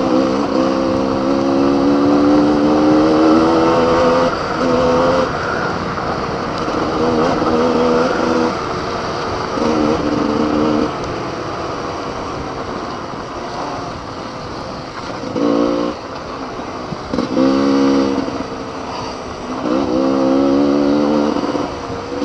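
Enduro motorcycle engine under hard riding on a dirt trail: it climbs in pitch over the first few seconds as it accelerates, then the throttle is opened and closed in a series of shorter bursts with the engine dropping back between them. A steady rush of wind noise runs underneath.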